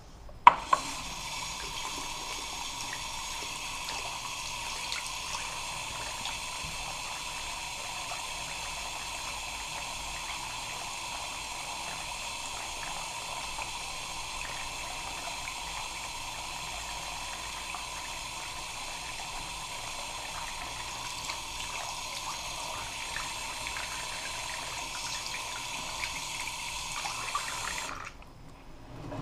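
Water running steadily from a bathroom tap. It starts with a sharp click about half a second in and cuts off suddenly near the end.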